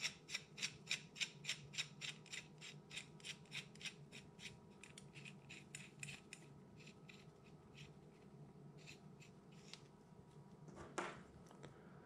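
Faint, rapid metallic ticking, about three or four clicks a second, as a barrel nut is spun by hand down the threads of an FX air rifle barrel. The clicks thin out and slow as the nut runs down, and there is a brief louder scrape near the end as the small wrench is picked up.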